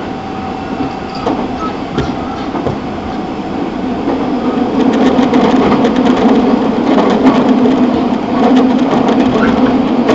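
Running sound of a Nagoya Municipal Subway 5050 series train on the move: a steady rumble of wheels and running gear that grows louder from about four seconds in, with short clicks of the wheels over the rails.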